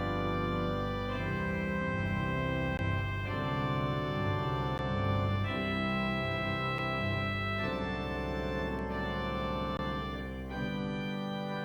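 Church organ playing a postlude: sustained chords that change every second or two.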